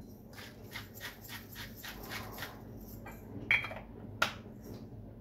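A small hand-held glass spice grinder being twisted, grinding with a rapid run of dry clicks about five a second, followed by a couple of sharper clicks or knocks. The food is being seasoned because it tastes bland.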